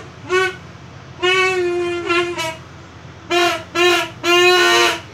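A plastic duck call blown in a string of seven blasts, short toots and a few longer held ones, each on one steady reedy pitch.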